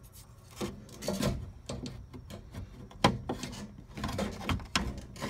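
Irregular scraping, rubbing and knocking as a fuel pump assembly and its hoses are worked by hand into the fuel tank opening, with a sharp knock about three seconds in.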